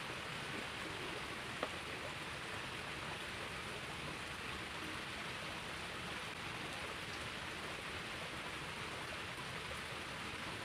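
Steady, even rushing of a small flowing stream, with one sharp click about a second and a half in.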